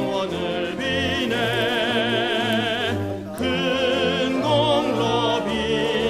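Background music: operatic singing with a wide vibrato over orchestral accompaniment, with a short break between phrases about three seconds in.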